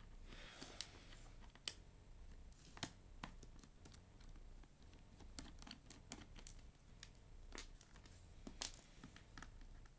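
Faint, irregular small clicks and ticks of a screwdriver tip and fingers working screws in an open MacBook A1342 laptop.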